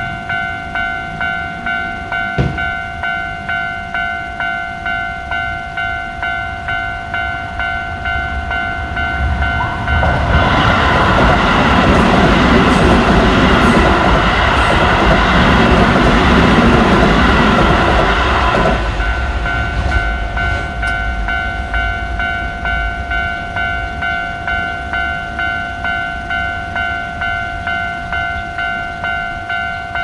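Japanese level-crossing warning bell ringing its steady, rapid kan-kan. A Keio commuter train passes through from about a third of the way in for about nine seconds, its running noise swelling over the bell and then falling away while the bell keeps ringing.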